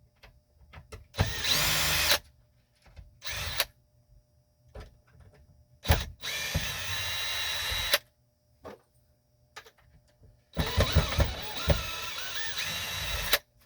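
Cordless drill/driver running in four bursts, the longest about three seconds near the end, with small clicks between runs: backing screws out of the refrigerator door's plastic hinge to take the hinge brace apart.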